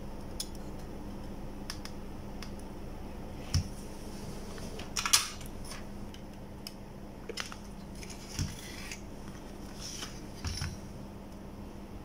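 Scattered light clicks and taps of small tools and a circuit board being handled, the loudest about five seconds in, over a steady low hum.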